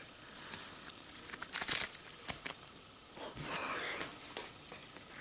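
Rustling and crinkling of the Lightning-to-USB cable's packaging as it is handled and pulled open, with scattered sharp clicks; the loudest bursts come about a second and a half in and again past the halfway mark.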